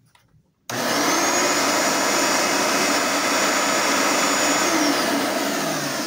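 A Bissell Power Partner upright vacuum cleaner switched on about a second in, its motor running with a loud steady rush and a thin high whine. About five seconds in, the whine falls away and the sound slowly fades as the motor winds down.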